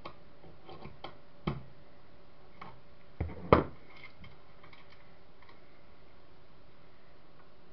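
Small metal clicks and knocks as a nut is worked loose on the metal pan-tilt frame of a JVC CCTV camera. There are a handful of sharp knocks in the first few seconds, the loudest about three and a half seconds in, then only faint ticks.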